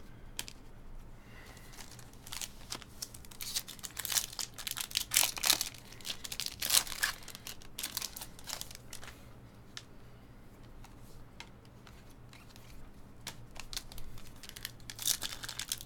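Foil trading-card pack wrapper crinkling and tearing as it is opened by hand, a quick string of sharp crackles for most of the first nine seconds, then quieter handling of the cards with a few more crinkles near the end.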